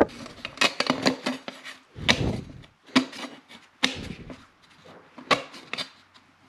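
Wooden baseboard trim being handled and worked into place: irregular knocks and clicks of wood against wood, with a couple of heavier thumps about two and four seconds in.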